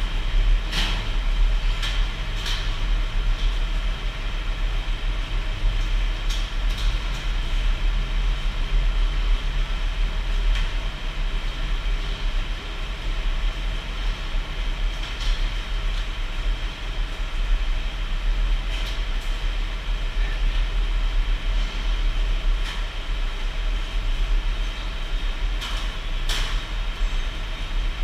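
Steady low mechanical hum and rumble of heavy industrial machinery, with scattered sharp clanks.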